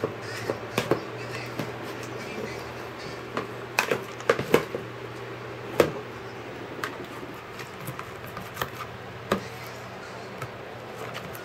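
Hands and a plastic spatula working sticky homemade slime in a plastic basin: irregular sharp clicks, smacks and knocks against the bowl, with a cluster of louder ones a few seconds in.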